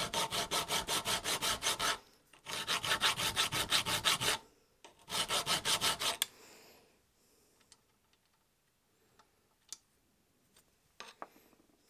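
Hand file rasping across the end of a steel rod held in a bench vise, dressing sawn prongs. It comes in three runs of quick, even strokes, about seven a second, over the first six seconds. After that there are only a few faint clicks.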